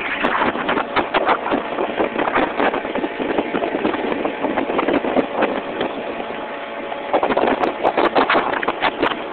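Small open boat's motor running steadily under way, a constant engine hum beneath irregular bursts of rushing, crackling noise that are heaviest in the first few seconds and again near the end.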